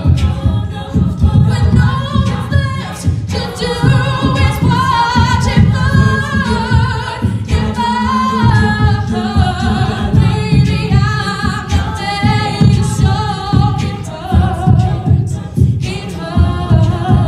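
Women's a cappella group singing in close harmony, a lead voice over layered backing voices, with a steady beat underneath.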